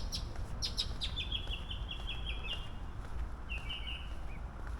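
Small songbird chirping: a few sharp high chirps, then a quick run of repeated notes at about six a second, and another short phrase near the end, over a steady low background rumble.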